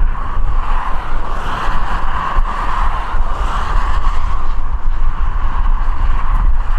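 Heavy wind buffeting the microphone in a gale, over the steady drone of a twin-turboprop airliner's engines as it lands in a gusty crosswind.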